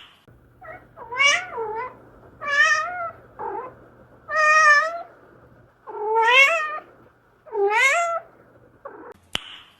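A cat meowing over and over: about five long, drawn-out meows, each wavering up and down in pitch, with a few shorter meows between them. A sharp click sounds near the end.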